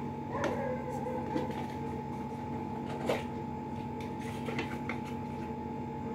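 A small cardboard gadget box being opened by hand, its inner tray slid out and handled: scattered light scrapes, rustles and taps, a sharper tap about three seconds in, over a steady low hum.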